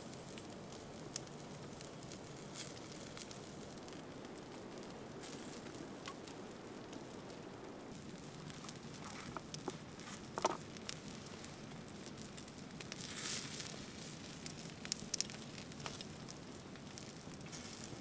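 Open wood campfire crackling, with scattered pops over a steady low hiss; a sharper pop comes about ten seconds in, a short hiss a few seconds later, and a quick run of pops after that.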